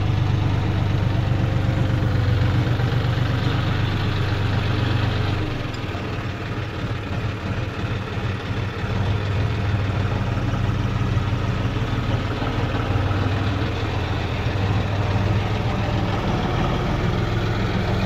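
John Deere 5045D tractor's three-cylinder diesel engine running at low revs as the tractor is manoeuvred, the level dipping briefly about six seconds in.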